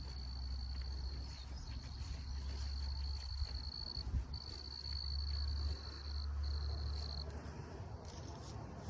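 An insect giving a steady, high-pitched, unbroken trill that breaks off briefly twice and stops about seven seconds in, over a low steady rumble.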